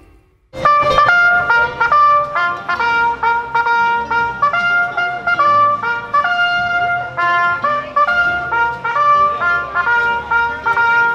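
A silver trumpet played solo, a lively melody of short, quick notes that starts about half a second in.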